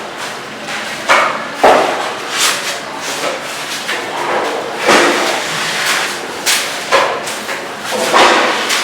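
Irregular thuds and knocks of manual building work, a handful of separate impacts several seconds apart with a rough, noisy clatter between them.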